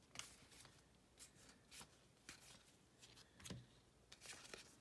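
Faint, scattered flicks and rustles of baseball cards being handled and flipped through one at a time.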